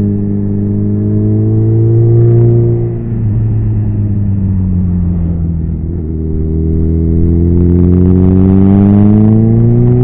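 Suzuki B-King's inline-four engine pulling the motorcycle up a winding road. The engine note dips about three seconds in as the bike eases off, then climbs steadily as it accelerates out of the bend.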